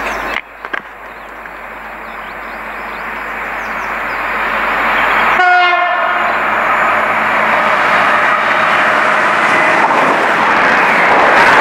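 Great Western Railway diesel multiple-unit train approaching and passing at speed, its noise building to its loudest near the end. It sounds a short horn blast about five seconds in. An earlier noise cuts off abruptly just after the start.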